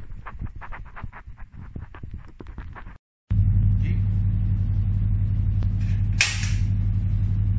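Handling knocks and rustling for the first few seconds. After a short dropout, a steady low hum sets in, and a spark igniter on a gas cooker burner gives one loud, sharp snap about six seconds in, with a few fainter clicks before it.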